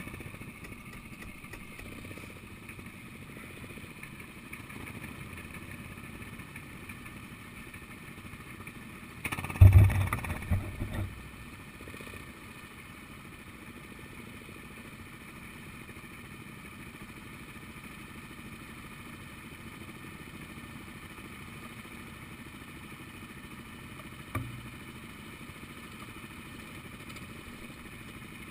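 Go-kart engine running, heard from the kart's onboard camera, with a burst of heavy thumps and rattling about a third of the way in and a single shorter thump near the end.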